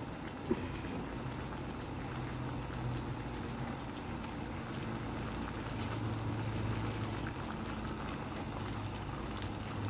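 Milkfish paksiw in its sour sauce simmering steadily in a pan over medium heat, the liquid bubbling. Faint clicks of metal tongs against the pan about half a second in and near six seconds.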